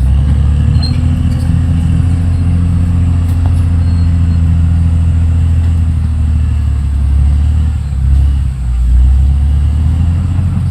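Caterpillar D6R XL bulldozer's diesel engine running with a steady low drone, dipping briefly about eight and a half seconds in.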